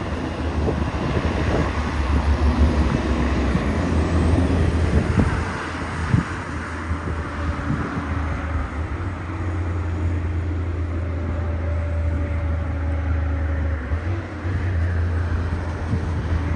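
A heavy truck's diesel engine working steadily under load up a steep grade, with a deep low rumble.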